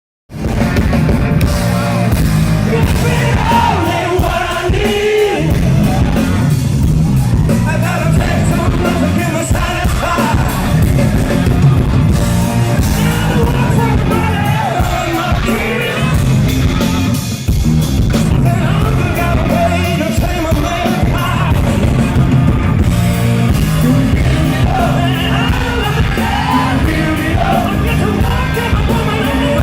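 Live rock band playing loudly, with a male singer's voice over distorted guitars, bass and drums, heard in a large hall through a phone-style recording.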